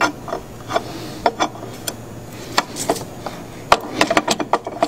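Metal scraping and clicking of a hooked pry bar worked back and forth under a Ford 6.0L Powerstroke EGR valve stuck in its bore with carbon, with scattered sharp clicks and a quick run of clicks near the end.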